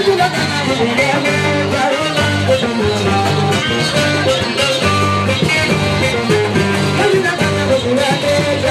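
Music with plucked guitar lines over a steady bass, and singing.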